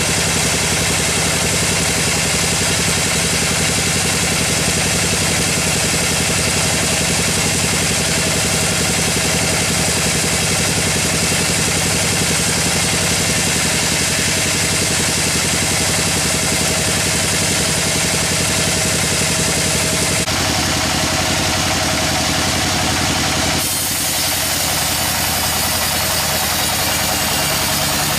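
Sawmill machinery running steadily with a loud, engine-like drone at a constant pitch. The sound changes abruptly about twenty seconds in and again about four seconds later.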